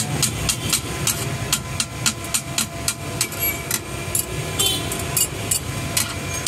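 Metal spatula chopping and scraping shredded chicken on a flat-top steel griddle: a rapid, irregular clatter of metal strikes on the plate, several a second.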